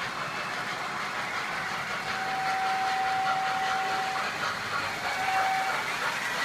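Toy electric train running on its track, with its onboard sound system blowing a long whistle blast and then a short one.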